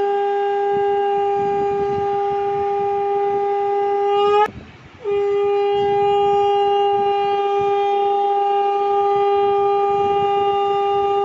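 Conch shell (shankha) blown in two long, steady blasts on one pitch. The first ends with a slight upward bend about four and a half seconds in, and after a brief pause for breath the second carries on.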